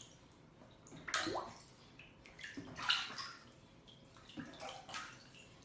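Water splashing and sloshing in a bathtub as a white duck paddles through it, in a few short bursts: about a second in, near three seconds, and again near the end.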